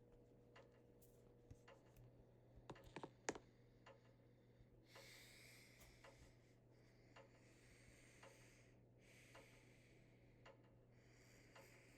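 Near silence: a ceiling fan running on medium, giving faint, even ticks about once a second over a low steady hum. A few sharper clicks come about three seconds in, and soft hiss swells up now and then.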